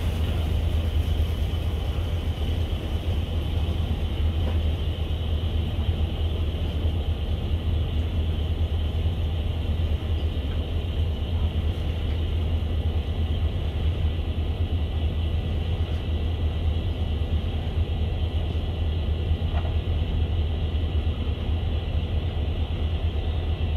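A motor yacht's inboard engines running slowly, a steady low rumble with a faint hiss over it.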